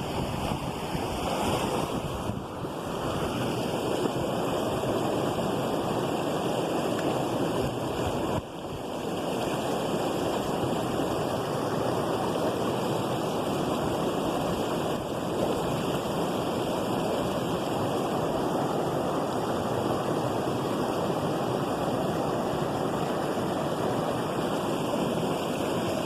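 Waterfall water rushing: a steady, loud roar of falling and flowing water, briefly dipping about eight seconds in.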